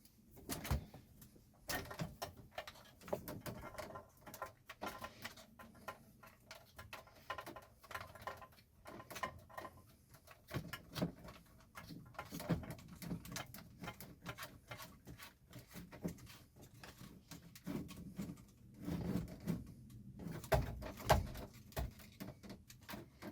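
Hands working small plastic parts and wiring: irregular clicks, taps and rustles, as a threaded retaining cap is screwed onto a dash-mounted USB port.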